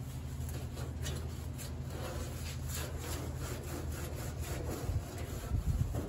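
Cloth rag scrubbing back and forth over the sanded steel underside of a 1960 Cadillac hood, a quick run of scratchy rubbing strokes about two a second, cleaning the metal with acid rust remover after sanding. A few heavier low thumps come near the end.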